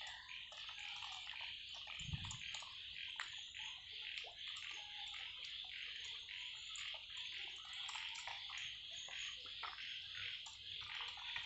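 Domestic ducks dabbling their bills in shallow muddy water: a continuous run of small irregular wet slurps and clicks over a steady high hiss. There is one brief low thump about two seconds in.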